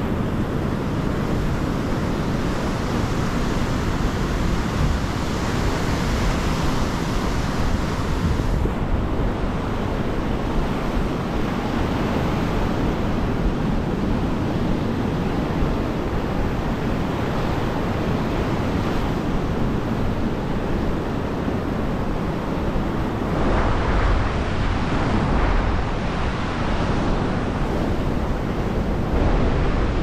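Mediterranean surf breaking and washing ashore in a steady rush, with wind rumbling on the microphone. A louder wash of surf comes a little past two-thirds of the way through.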